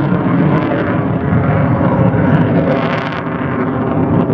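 Lockheed Martin F-22 Raptor's twin Pratt & Whitney F119 turbofans in afterburner during a display pass: a loud, continuous jet noise full of crackle.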